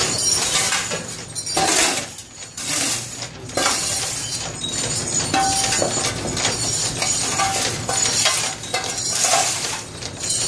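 Loose scrap metal clinking and scraping as it is cleared from under a machine: a dense, continuous clatter of sharp metallic hits with two brief lulls.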